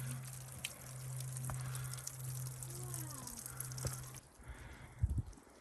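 Steady rushing noise of flowing water over a low, steady hum. It cuts off about four seconds in, leaving a quieter background and a brief thump near the end.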